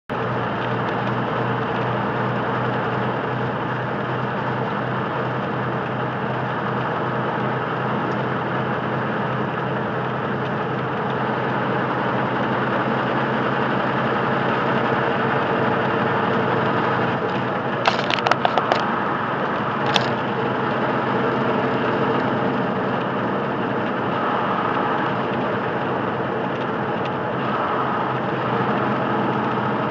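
Steady engine and road noise of a semi truck cruising on the highway, heard inside the cab. A quick run of sharp clicks a little past halfway, then one more click about two seconds later.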